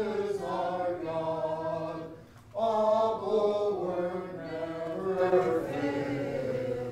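A congregation singing a hymn together in unaccompanied voices, holding long notes, with a short pause between lines about two and a half seconds in.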